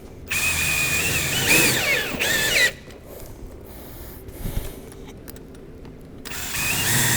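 A power drill driving screws into the valley cleat, running in two bursts of steady whine. The first lasts about two and a half seconds and wavers in pitch as it ends; the second starts near the end.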